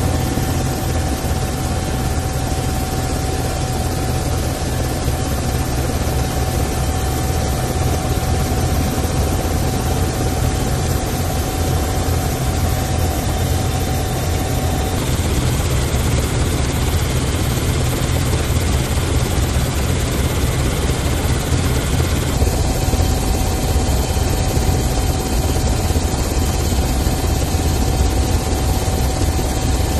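Helicopter engine and rotor noise heard from inside the cabin: a steady, loud low drone with a thin steady whine above it. The whine drops out about halfway and comes back some seconds later.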